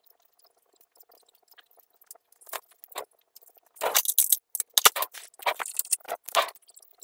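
Small gear and motor parts being handled and fitted: a few light clicks at first, then a busy run of sharp clicks and taps about four seconds in, over a faint steady hum.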